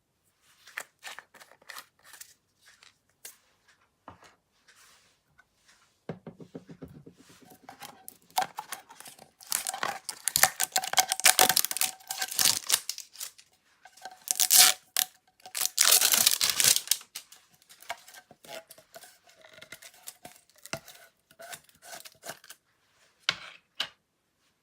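Hands squishing and stretching slime: sticky clicks and pops, sparse at first, then two loud stretches of dense tearing crackle near the middle, easing back to small pops near the end.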